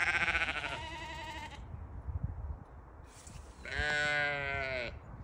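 Dorper sheep bleating twice: a quavering bleat that trails off about a second and a half in, then a second, steadier bleat about four seconds in that lasts about a second.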